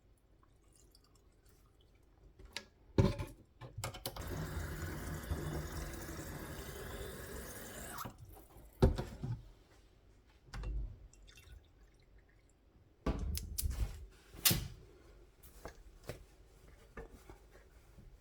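Kitchen tap running into the sink for about four seconds, with sharp knocks and clatter before and after it.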